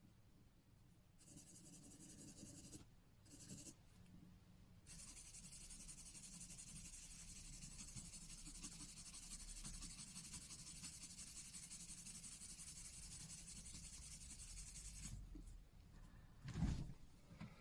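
Scratchy hiss of abrasive rubbing on a titanium watch case, matte-finishing the metal. It starts and stops a few times in the first seconds, then runs steadily for about ten seconds before stopping. A single sharp knock near the end is the loudest sound.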